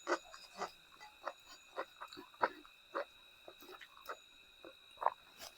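A person chewing food with irregular wet mouth clicks and smacks, a few a second.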